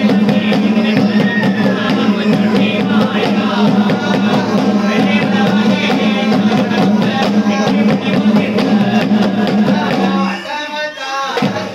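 Men singing a Kerala ritual thottam song to drum accompaniment, over a steady held low note with quick drum strokes. The held note and drumming break off about ten seconds in, and the sound becomes quieter.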